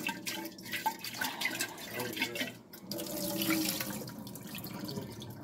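Baking-soda water sloshing unevenly around inside a glass pickle jar as the jar is swirled by hand, spreading the paste over the inside to draw out the pickle odor.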